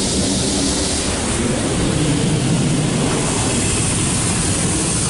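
High-pressure spray jets of a Belanger Kondor KL2 touchless car wash blasting water over the car, heard from inside the cabin as a steady heavy rush over a low rumble. It turns harsher and hissier about a second in.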